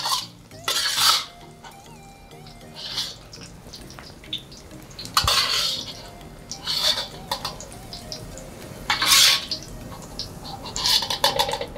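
Metal cooking utensil scraping and clinking against a pan in short bursts every second or two, as fried food is lifted out and drained of oil.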